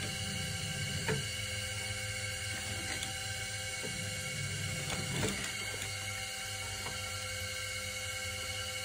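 Potter's wheel motor running with a steady hum and whine, with a few soft clicks, the loudest about a second in and about five seconds in.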